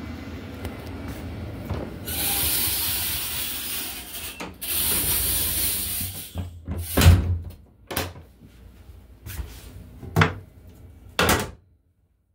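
Restroom door and fittings of a Long Island Rail Road M7 railcar: two long hissing sweeps, then four sharp thuds and knocks a second or so apart.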